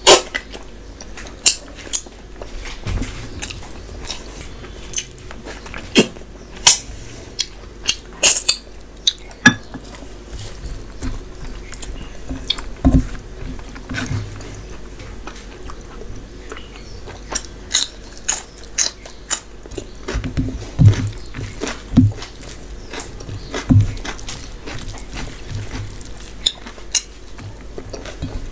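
Close-miked mouth sounds of eating mutton curry and rice by hand: chewing and lip smacks, heard as irregular sharp wet clicks that come in bunches, with soft squelches as fingers mix rice and curry on the plate.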